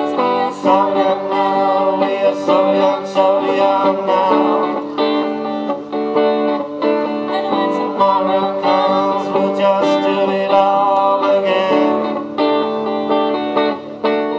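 A woman singing over a hollow-body electric guitar, played through a small combo amplifier.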